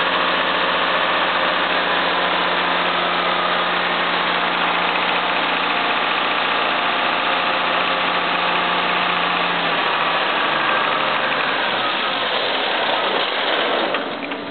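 John Deere 6068T turbocharged six-cylinder diesel power unit, run without a muffler, idling steadily. About ten seconds in its note drops and it winds down, going quiet near the end as it is shut off.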